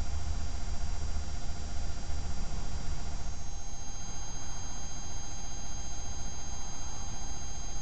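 Steady hiss from a trail camera's microphone, with a thin electronic whine of several fixed tones and a low rumble underneath. The noise shifts slightly where the recording cuts to another clip a few seconds in.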